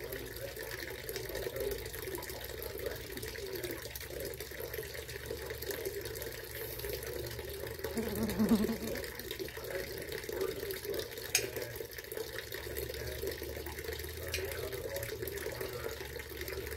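Small garden fountain trickling steadily, with a knife clicking once against a plate as a nectarine is sliced. A short low hum about halfway through is the loudest moment.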